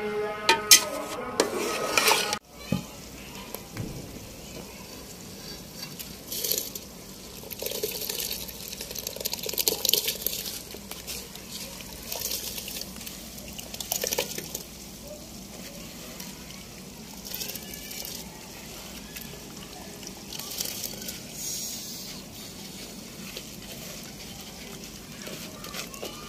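A metal spatula scraping and stirring a wet curry in an aluminium pot for the first couple of seconds. Then rice is tipped by hand and from a plastic colander into water in an aluminium pot, in scattered short splashing pours.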